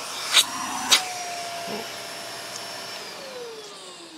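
Shark UV850 upright vacuum's motor running hard against a suction gauge on its hose, with two sharp pops in the first second as the inlet is closed off for the sealed-suction reading, after which its whine rises a little in pitch. About three seconds in the motor is switched off and winds down in a falling whine.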